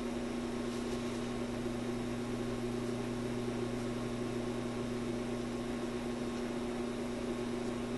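Newcomb TR-1656-M record player's turntable motor running on reduced mains power, giving a steady low electrical hum that does not change.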